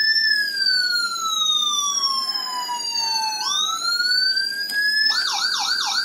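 Motorcycle-mounted electronic siren on its standard wail tone: one slow sweep falling in pitch, then rising again. About five seconds in it switches to a fast yelp warble.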